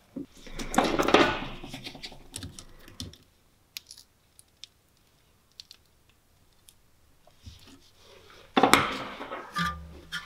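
Gloved hands pushing and working a rubber CV joint boot into place over the joint: scuffing and rubbing about a second in and again near the end, with scattered light clicks between.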